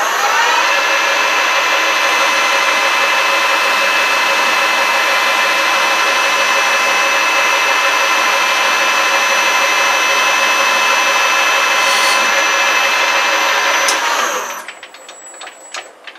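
Harrison M250 lathe spindle and headstock gears running with a steady multi-toned whine while turning the workpiece. It spins up at the start and winds down to a stop about fourteen seconds in.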